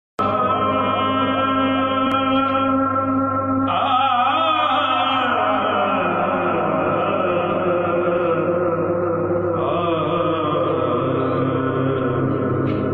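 A man's voice singing a naat, an unaccompanied devotional poem, through a microphone, holding long drawn-out notes and ornamenting them with wavering runs.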